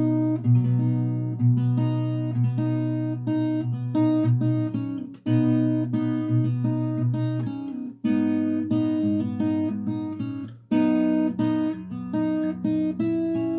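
Acoustic guitar played fingerstyle: an arpeggiated chord-melody pattern plucked over low bass notes, in four short phrases with brief breaks between them, the last chord left ringing near the end.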